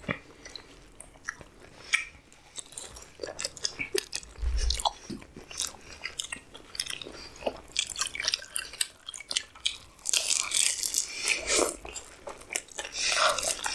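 A person eating: biting and chewing with crunching, heard as many quick clicks and smacks that grow denser and louder about ten seconds in.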